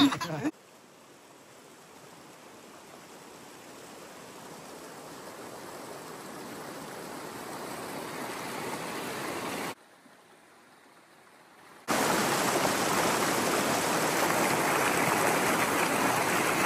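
Rushing whitewater of a mountain creek: a steady, even rush that grows louder over about nine seconds, cuts out for about two seconds, then comes back louder and steady.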